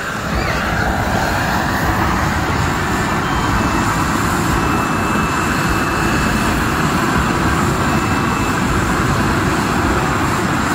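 A Japanese gunpowder tube firework spraying a fountain of sparks: a loud, steady rush of burning powder that neither pauses nor breaks into separate shots.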